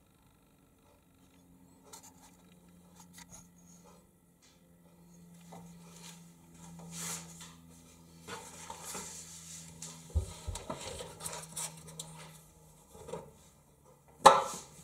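Plastic salt-reservoir cap inside an Indesit DIE 2B19 dishwasher's stainless-steel tub being handled and unscrewed: small clicks, then rubbing and scraping of the plastic, with one sharp knock near the end.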